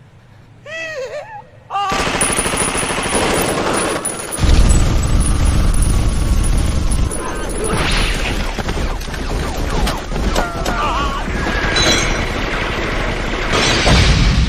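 Sustained heavy machine-gun fire, a film sound effect, starting about two seconds in and growing heavier and deeper about halfway through. A short wavering high sound comes just before it starts.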